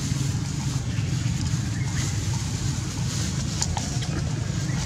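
Steady low rumble of wind buffeting the microphone, with a faint hiss above it and a few faint clicks about three and a half seconds in.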